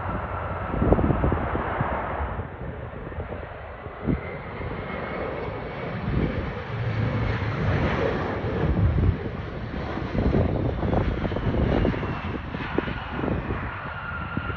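Commercial jet airliner's engines running: a steady high whine over a rumble of jet noise. Gusts of wind buffet the microphone.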